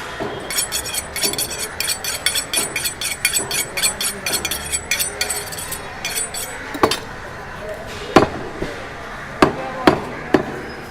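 Indian street market ambience: rapid metallic clinking, about five or six ringing strikes a second, runs for about five seconds over a bed of crowd chatter, then stops. In the second half come several loud, sharp knocks like hammer blows.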